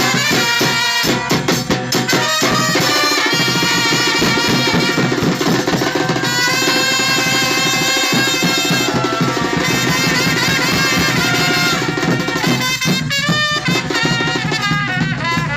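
Latin band music in a salsa style, driven by a percussion section. Sharp drum hits stand out in the first couple of seconds, then sustained melodic lines play over the steady rhythm.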